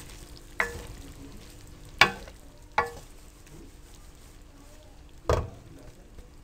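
A spoon stirring cooked potato fries in a metal karahi, knocking and scraping against the pan about five times, some knocks leaving a brief ring, the loudest a little after five seconds in.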